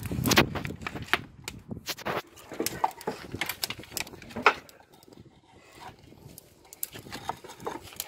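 Irregular knocks and clicks of wood being poked and shoved around inside a wood-fired firebrick oven with a stick and a flat wooden board on a long pole, the loudest about half a second in and again about four and a half seconds in.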